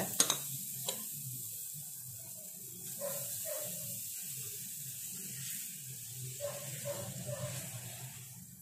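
Quiet hiss of dosa batter being spread in circles with a steel ladle on a hot pan, over a low steady hum. There are a few light clicks of the ladle in the first second.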